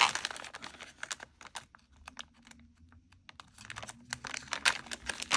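Plastic packaging bag crinkling and rustling as hands pull it open, in quick crackly clicks that ease off for a couple of seconds in the middle and pick up again near the end.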